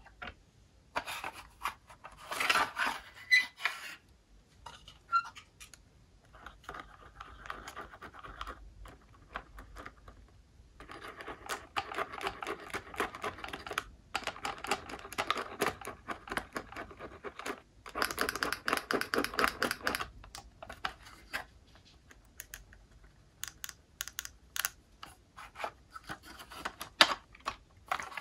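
Slime being mixed and squished: dense, crackling clicks that come in several bursts of a few seconds each, with scattered single clicks between.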